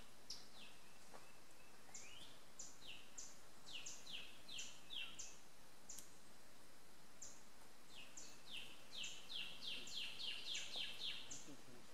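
A songbird singing in woodland: a run of short high notes, each sliding sharply downward, then after a pause a second, faster and louder run of the same notes. A single sharp click about halfway through.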